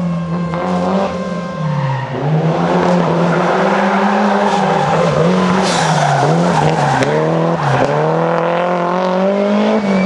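A Toyota Celica rally car's engine is worked hard through a turn, its pitch rising and dropping again and again with throttle and gear changes, while the tyres squeal as the car slides sideways. There is one sharp crack about seven seconds in.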